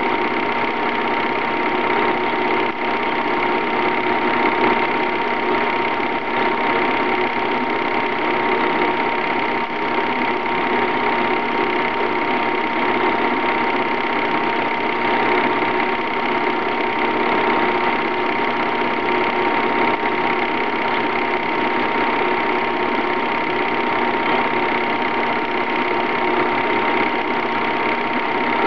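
A film projector running: a steady mechanical whirring clatter with a constant high tone, unchanging throughout.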